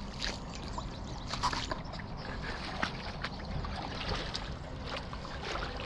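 Hooked catfish splashing and thrashing at the surface in shallow river water, with scattered small splashes and sloshing over a steady low rumble.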